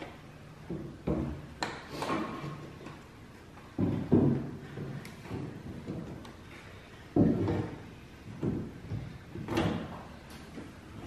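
Irregular knocks and clunks of a plastic tail-light housing being handled and pressed into place against a pickup's sheet-metal bed corner, the loudest about four and seven seconds in.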